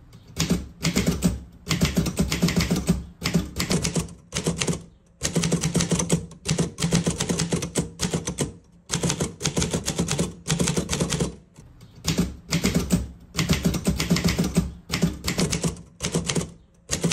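Typewriter keys clacking in quick runs with short pauses between them: a typing sound effect for on-screen title text appearing letter by letter.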